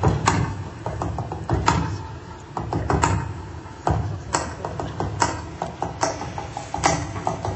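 Tap dancing: tap shoes striking a stage floor in irregular clusters of quick taps, with louder single strikes every second or so, and almost no orchestra under it.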